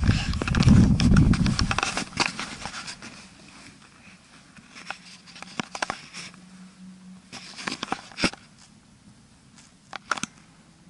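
Handling noise as a chest-held camera rubs against clothing, with rumble on the microphone for the first two seconds. Then a quiet, reverberant stone church interior with scattered clicks and taps.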